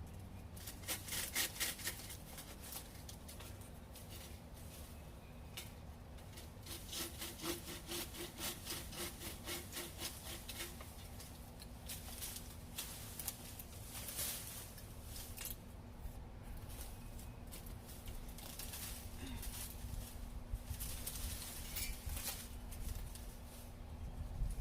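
Hand saw cutting through a tree branch, in several bouts of quick back-and-forth strokes with short pauses between them.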